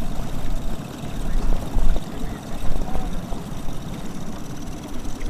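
Mercury 15 hp outboard motor running with a steady low drone, pushing a small aluminium boat through floodwater.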